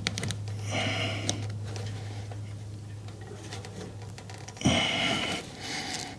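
Faint clicks and scrapes of a pick and small metal parts working a snowblower drive chain's connecting link, over a steady low hum. Two short breathy noises, about a second in and near five seconds.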